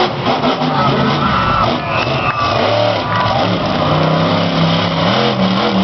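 Monster truck engine running hard, its pitch rising and falling, with music playing at the same time.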